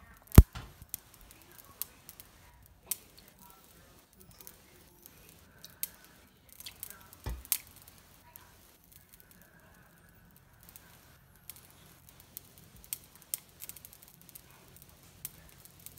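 Orbeez water beads heating in a dry, hot pan, giving off scattered sharp pops and crackles as they burst open, the loudest about half a second in.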